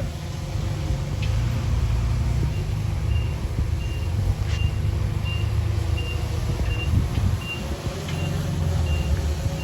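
Heavy diesel machinery running with a steady low rumble, while a reversing alarm beeps about twice a second from a couple of seconds in, as a truck or machine backs up. A few sharp clanks stand out over it.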